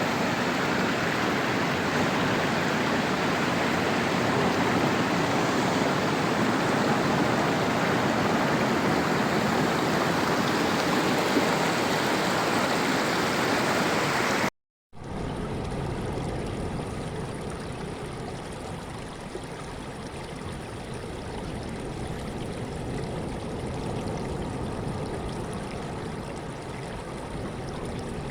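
Sea waves washing steadily. About halfway through, the sound cuts out for a moment and comes back quieter and duller.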